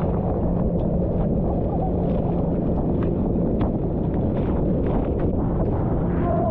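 Heavy wind rumble on an action-camera microphone and water spray splashing as an inflatable tube is towed at speed over choppy water, with a faint steady hum underneath.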